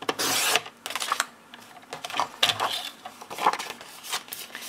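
Paper trimmer's sliding blade drawn through a sheet of cardstock in one quick stroke just after the start, followed by shorter rustles and scrapes as the cut card is picked up and handled.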